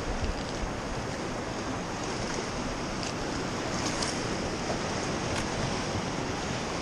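Steady wash of ocean surf breaking on rocks, with wind on the microphone.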